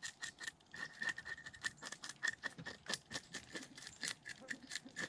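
A small curved fish scaler scraping scales off a whole bream against a cutting board, in quick, irregular rasping strokes, several a second.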